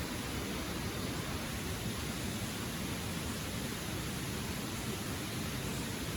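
Steady, unbroken rushing of water, an even hiss with no distinct drops or breaks.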